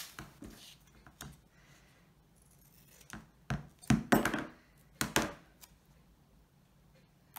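Black tear-off adhesive tape being pulled from its roll and cut with scissors: three short rips and snips about three and a half to five and a half seconds in, with a few light handling clicks before them.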